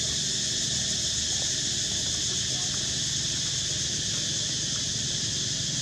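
Insects droning in a steady, high, unbroken chorus, with a low rumble underneath.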